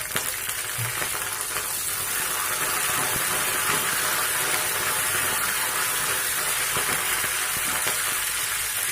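Green chillies and curry leaves sizzling and crackling in hot oil with tempering spices in a kadai. The sizzle grows louder over the first few seconds, then holds steady.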